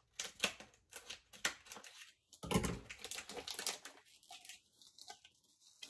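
Plastic wrapper of a pack of wafer cookies crinkling and tearing as it is pulled open, with one louder crackle about two and a half seconds in.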